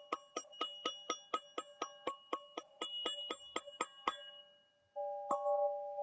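Teal ZenTube struck in a quick even rhythm, about four ringing strikes a second on the same few notes. The strikes stop about four seconds in; after a short gap a held tone starts and the strikes resume more slowly.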